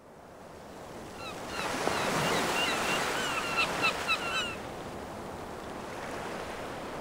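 Sea waves washing on a shore, swelling in the middle and easing after about four and a half seconds, with a run of short, clipped bird calls over the surf.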